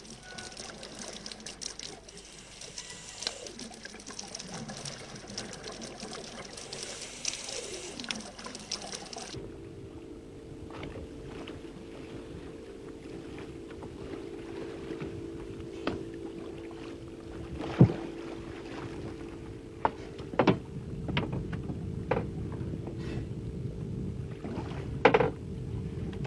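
Underwater hiss and crackle at first. About nine seconds in it cuts to a boat engine running steadily on the surface, with water splashing and several sharp knocks against the boat.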